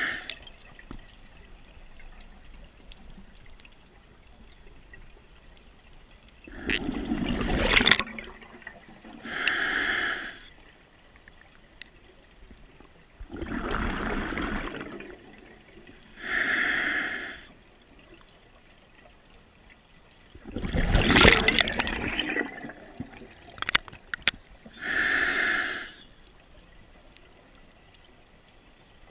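Scuba diver breathing through a regulator underwater: a short hiss of inhalation through the demand valve alternating with a longer rush of exhaled bubbles, three breaths in all, one about every seven seconds.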